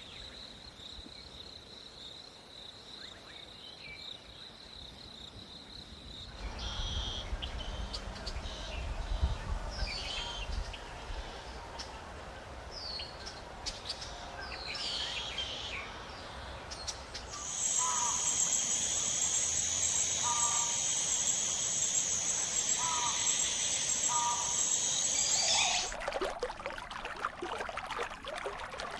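Jungle ambience in changing sections: a steady high drone, then birds chirping over a low rumble, then a shrill steady insect-like buzz with short repeated calls, and dense crackling noise near the end.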